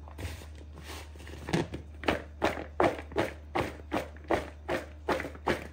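Cornflour-coated okra pieces tossed in a plastic bowl, knocking against its sides in an even rhythm of about three knocks a second that starts a second and a half in, over a low steady hum.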